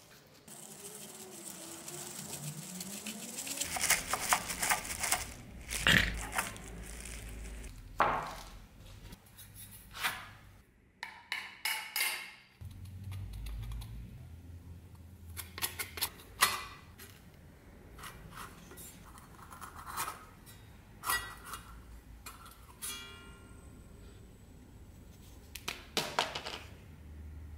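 Disassembling a rusty rapier hilt: pliers on the nut at the end of the handle, then the rusted steel cup guard and wooden grip handled and worked apart, giving scattered metal clicks, knocks and short scrapes. Music plays underneath.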